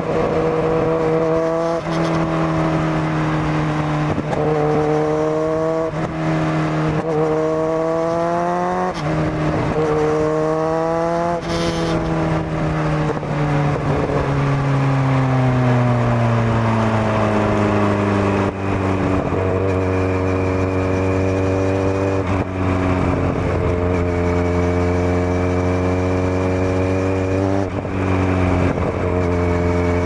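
Kawasaki Z900's inline-four engine through a Zard full exhaust system, heard on board while riding. Its note dips and climbs again every couple of seconds at first, falls steadily from about twelve seconds in as the bike slows, then holds a steady lower note with two brief dips near the end.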